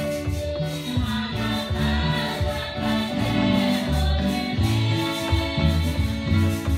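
A congregation singing a hymn in Q'eqchi' together, over amplified instrumental accompaniment with a rhythmic bass line.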